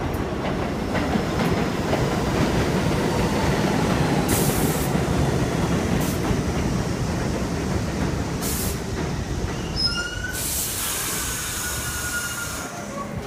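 R62A subway train arriving on an elevated track: a dense rumble of steel wheels on the rails, loudest about four seconds in and easing as the train slows. Several short bursts of hiss come through, and from about ten seconds in a high wheel squeal sounds as it brakes toward a stop.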